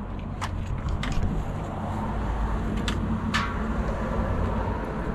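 Wind buffeting the microphone with a steady low hum beneath it, and a few sharp clicks, two of them close together about three seconds in.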